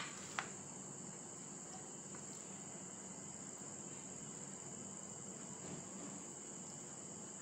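A cricket trilling steadily, a continuous high-pitched tone, with a couple of soft clicks in the first half-second.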